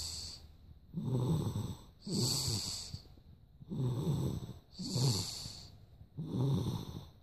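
Heavy snoring: rasping, rattling snores in pairs, each about a second long, one pair roughly every two and a half seconds.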